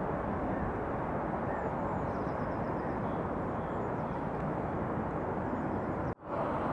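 Steady outdoor city ambience: a continuous hum of distant traffic heard from a high vantage point. It cuts off abruptly near the end.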